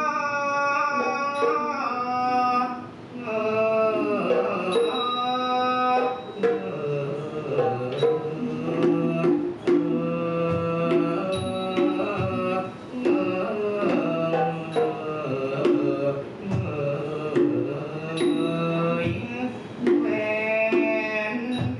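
Thai piphat mai khaeng ensemble: a singer's gliding Thai vocal line over light cymbal-like strokes for the first few seconds. About six seconds in, the ensemble of ranat xylophones, gong circles and drums takes up the tune with dense, rapid struck notes.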